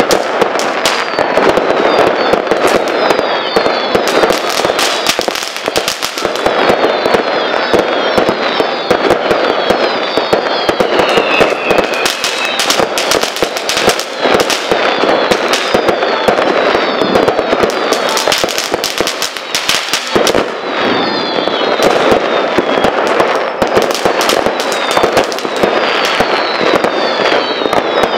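Fireworks going off in a dense, unbroken run of bangs and crackles, with many short falling whistles among them.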